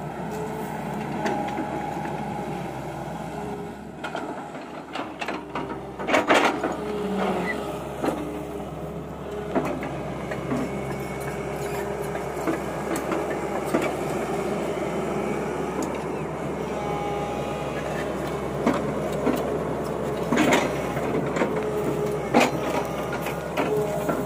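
Tata Hitachi EX200LC hydraulic excavator running steadily while digging loose soil with its bucket, the diesel engine and hydraulics under load. A few sharp knocks from the bucket striking the ground come about six seconds in and twice near the end.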